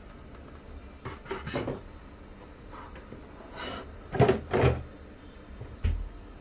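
A container slid into a small fridge's freezer compartment with several scraping knocks, loudest about four seconds in, then the fridge door shut with a low thud near the end.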